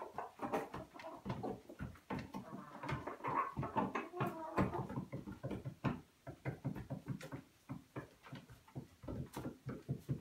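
Chickens pecking and scratching at straw on a wooden coop floor: many quick irregular taps, with soft clucking around the third and fourth seconds.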